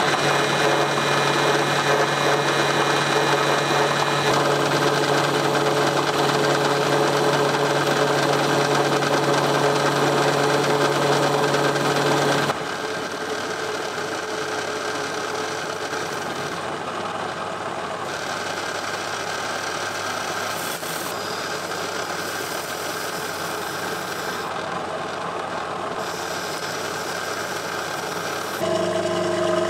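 Metal lathe running steadily while its tool turns down square aluminium bar stock, with the motor and drive humming under the cutting. About twelve seconds in the sound drops suddenly to a quieter level, and near the end it rises again.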